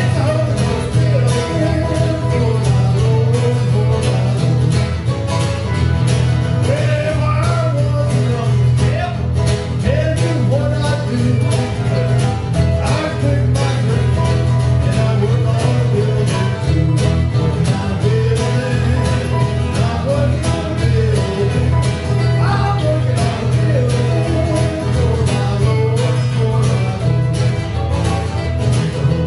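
Live acoustic string band playing a country-gospel song in bluegrass style, with strummed guitar keeping a steady rhythm under a sung melody.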